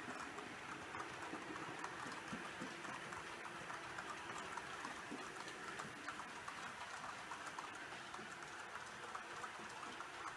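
H0-scale model passenger coaches rolling along the track: a steady, faint rattle of many small wheel clicks.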